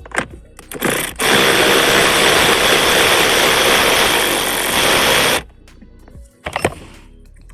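A handheld power tool runs steadily for about four seconds, starting and stopping abruptly, most likely backing out a panel fastener. A few sharp clicks come before it and one comes near the end.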